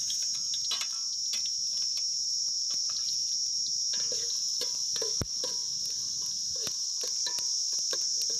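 A steady high-pitched insect drone, with a metal spatula clicking and scraping against an aluminium pot as chopped onions are tipped in and stirred.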